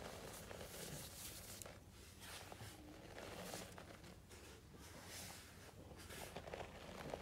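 Hands pushing into and lifting out of a tub of fine dry white powder, making faint soft crunching and swishing in repeated strokes with a few small crackles as the packed crust breaks.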